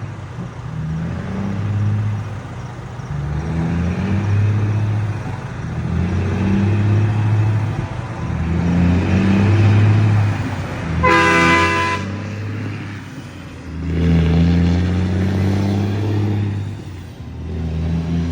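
Volvo FH truck with a straight 'estralador' crackle exhaust, its deep engine note swelling and easing off again and again as it is revved and driven. About eleven seconds in a horn sounds for about a second.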